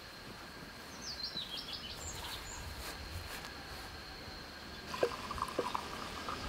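Birds chirping in quick descending calls about a second in. Near the end come a few glass clinks, and tea is poured from a glass teapot into small tea glasses on a tray.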